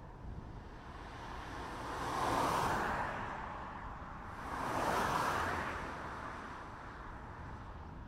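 Rough sea surf: two waves breaking, each a rushing swell that builds and fades over about two seconds, over a steady low rumble.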